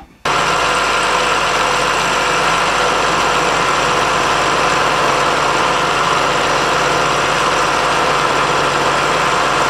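Small milling machine running with a roughing end mill cutting a slot into a steel block: a steady machining noise with constant whining tones, cutting in abruptly a moment in.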